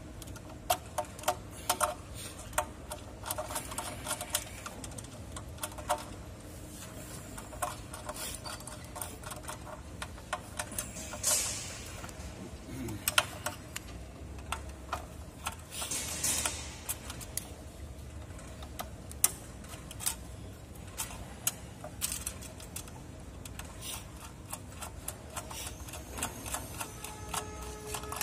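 A screwdriver working the terminal screws of a contactor starter, giving irregular sharp metal-and-plastic clicks and taps, with two short hissing rustles in the middle.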